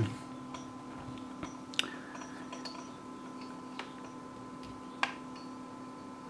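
A few light clicks and taps, the clearest about two seconds in and near the end, as meter probes are handled and placed on a 6-volt battery, over a faint steady hum.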